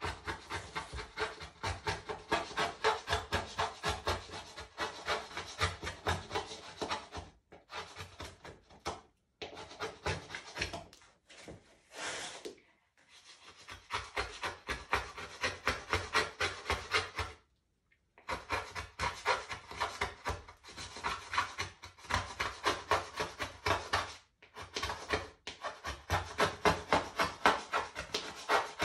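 Rapid back-and-forth rubbing strokes on a bare plywood panel during pencil sketching, about five strokes a second, in runs of several seconds broken by short pauses.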